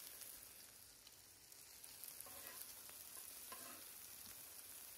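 Beef chuck steaks and vegetables sizzling faintly on a flat-top griddle, with a few light clicks of metal tongs handling onion rings.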